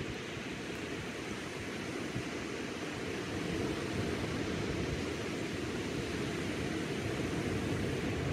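Low surf breaking and washing up a sandy beach, a steady low rushing noise.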